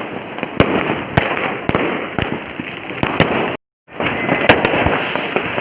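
Diwali firecrackers and fireworks going off: continuous dense crackling with frequent sharp bangs. The sound cuts out completely for a fraction of a second about two-thirds of the way through, then resumes.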